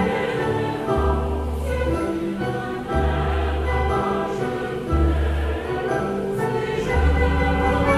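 Background music of held chords, with a deep bass note that sounds about every two seconds.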